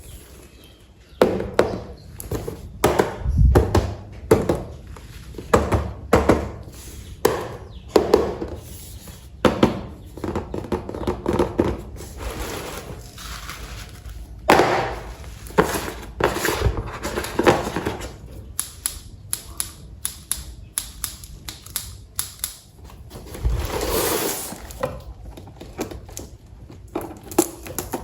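Toy train set parts and packaging being handled: a series of knocks and thunks about once a second, then quicker light clicks and tapping, with a couple of brief rustling or sliding noises.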